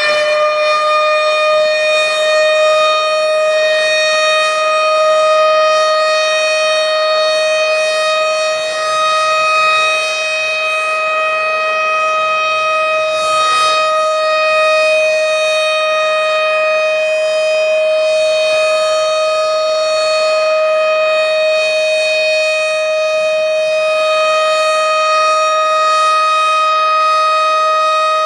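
Tornado warning siren sounding one loud, steady tone. It finishes a slight rise in pitch within the first second, then holds level.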